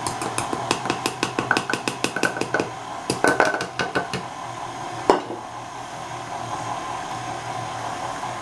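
KitchenAid Artisan stand mixer running with a steady motor hum, and a rapid knocking in its stainless steel bowl as the dough hook drags stiff cookie dough and flour around, about five knocks a second. The knocking stops about four seconds in, followed by one louder knock a second later.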